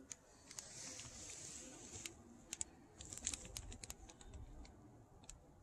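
Faint crinkling and rustling of plastic parts bags and cardboard packaging being handled: a soft rustle for the first couple of seconds, then a run of quick, sharp crackles.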